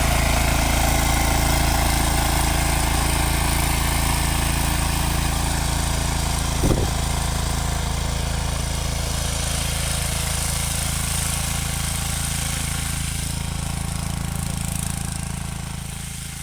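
A mini tractor's engine running steadily while ploughing, with one brief knock about seven seconds in; the sound fades away near the end.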